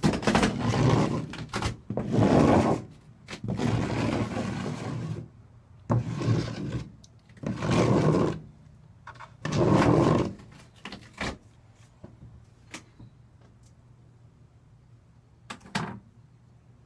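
Notched trowel scraping vinyl tile adhesive across a counter in repeated strokes, about seven over the first ten seconds. After that only a few light ticks and one short scrape near the end.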